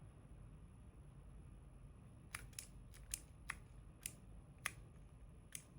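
Keycap figure's key switch pressed repeatedly, giving about seven short, sharp plastic clicks at uneven spacing over the last three seconds. Each press cycles the figure's light to another colour.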